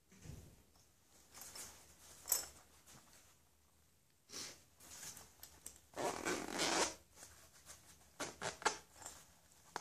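Handling noises from packaging and a black fabric pouch: scattered rustling and scraping, one longer rasping rustle about six seconds in, and a few sharp clicks near the end.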